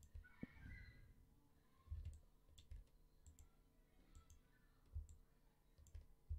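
Faint, scattered clicks of a computer mouse, about eight in all, over near-silent room tone.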